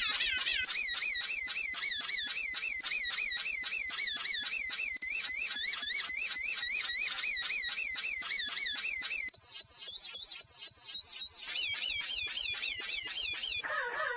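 Heavily processed, pitch-shifted copy of a sad wheezing sound effect: a shrill warbling tone stacked at several pitches at once, wobbling up and down several times a second like an alarm. Near the end it drops to a lower pitch.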